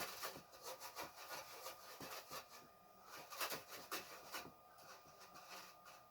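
Faint, irregular rubbing strokes of a gas stove's surface being wiped clean of sticky grime.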